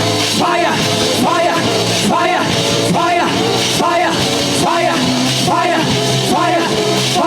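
Loud live praise-band music with a steady beat and splashing cymbals, over which a short rising-and-falling phrase repeats about once a second.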